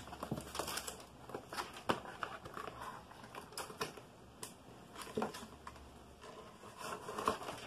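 Hands unpacking fan-kit cables and connectors: plastic bags rustling and small plastic connectors clicking and tapping irregularly.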